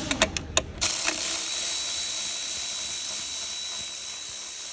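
A few sharp metallic clicks in the first half second, then a steady loud hiss with a thin whistling tone running through it.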